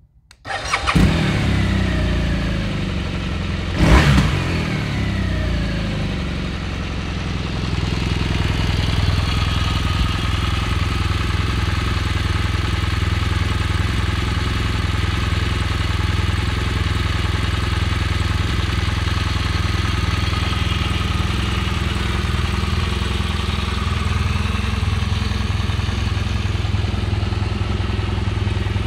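2014 BMW R1200 GS (K50) boxer-twin engine starting, revved briefly twice and falling back each time, then idling steadily.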